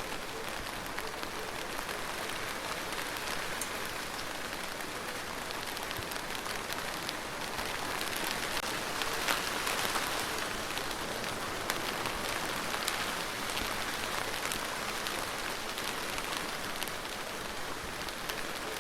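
Steady rain falling on a surface: a dense, even hiss of drops with many small, sharp ticks of individual drops, swelling slightly about halfway through.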